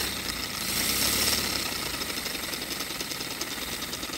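Paper boxer-twin air engine revved hard on compressed air: loud rushing air with a fast, even clatter from the running engine, which stops sharply near the end.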